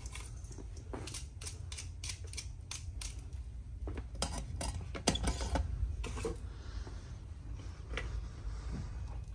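A run of sharp metallic clicks and taps, a few a second, as a soldering iron and small tools are handled at a workbench, over a steady low hum. The clicks thin out about six and a half seconds in.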